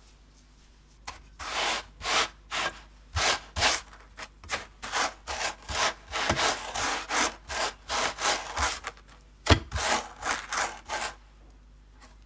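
Sablé dough log rolled back and forth by hand through granulated sugar in a stainless steel tray, a quick run of gritty rubbing strokes as the sugar crystals scrape against the dough and the steel. One stroke about nine and a half seconds in is a sharper knock.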